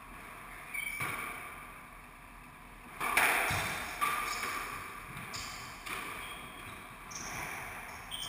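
Squash ball struck by rackets and hitting the court walls during a rally, about six sharp echoing strikes, the loudest about three seconds in. Short squeaks from shoes on the wooden floor come in between.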